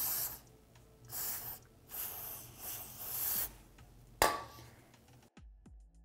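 Aerosol contact cleaner and a rag cleaning a bolt: a few short hissing passes, then a single sharp metallic clink about four seconds in.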